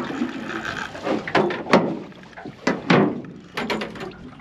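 A run of sharp knocks and thumps, about six of them bunched through the middle, over a light steady background hiss.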